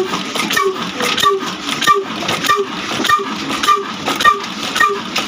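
Old Ruston Hornsby stationary diesel engine running slowly and evenly, with a regular beat of about one and a half strokes a second and a sharp knock at each stroke.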